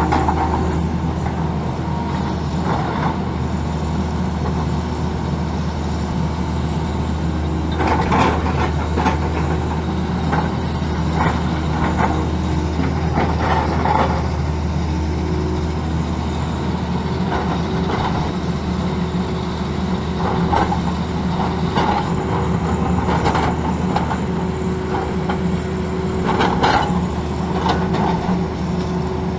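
Tata Hitachi excavator's diesel engine running steadily with a deep hum, broken several times by short scraping and clanking bursts of the bucket working the road surface.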